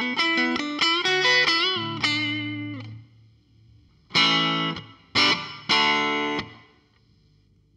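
Fender Telecaster played through a Fender Blues Junior valve amp and a Coldcraft EchoVerberator pedal, the pedal's reverb set moderately low (reverb at 12 o'clock, dwell at 10) to add a little room depth. A quick phrase of single notes with a string bend, a pause, then three strums that ring out and fade.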